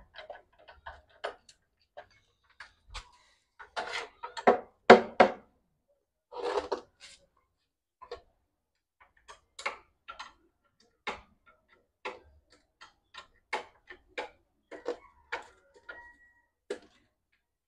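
Irregular metal clicks and taps from a socket tool and bolts being worked on a generator's alternator end housing, with a few louder knocks about four to five seconds in.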